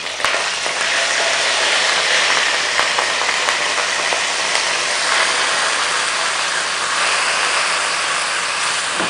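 Hot oil with cumin seeds sizzling steadily in a non-stick wok after a splash of water has hit it, with a few light clicks of a silicone spatula stirring in the pan.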